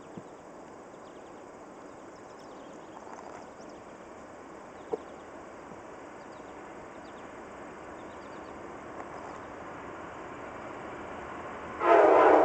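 Faint, steady rumble of an approaching diesel coal train, slowly growing louder, then about a second before the end the locomotive's air horn sounds a loud multi-note chord.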